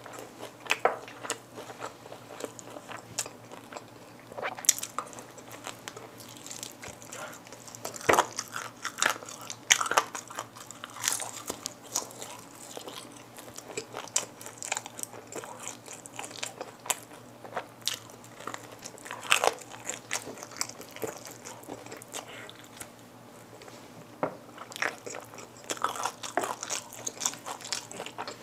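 Close-miked bites into crispy Kyochon Red Combo fried chicken drumsticks, with irregular sharp crunches of the fried coating and chewing between them.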